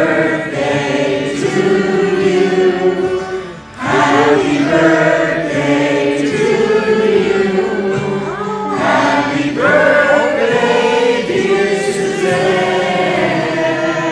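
A group of many voices singing together to a strummed acoustic guitar, in phrases with a brief break about four seconds in.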